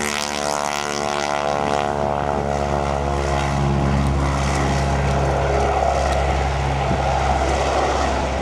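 North American T-6 (Navy SNJ) trainer taking off at full power: its Pratt & Whitney R-1340 nine-cylinder radial engine and propeller running loud. The pitch falls slightly over the first three seconds, then holds steady as the aircraft lifts off and climbs away.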